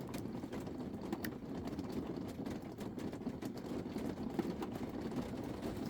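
Faint, irregular clicks of a lock pick and tension tool working the pins of a warded pin-tumbler padlock, reaching around the warding for the last pin, over a steady low rumble.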